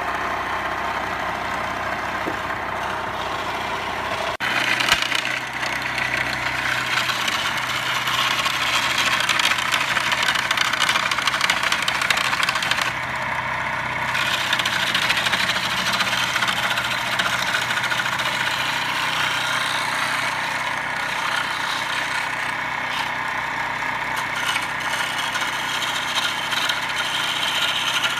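Homemade wood lathe's electric motor running steadily. About four seconds in a sharp knock comes and the sound changes: a steady low hum appears under a brighter, hissing whir that continues to the end.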